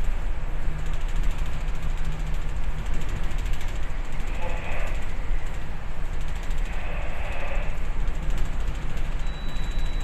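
Steady rumble and rattling vibration aboard a bulk carrier underway in a rough sea, with wind buffeting the microphone. The rush of waves along the hull swells twice, around the middle.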